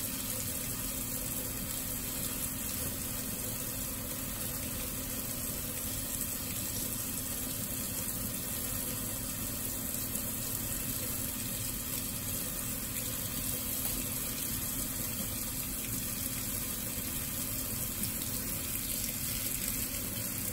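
Kitchen faucet's pull-down sprayer running steadily, its spray pouring through a small mesh strainer and splashing into a stainless steel sink.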